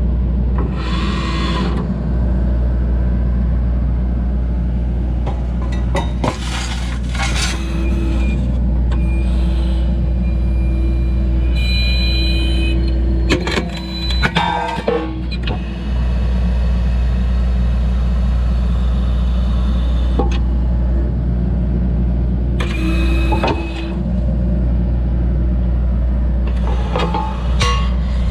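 Excavator's diesel engine running steadily under hydraulic load while a hydraulic metal shear cuts steel, with repeated bursts of screeching and several sharp snaps and knocks as the jaws bite through the metal.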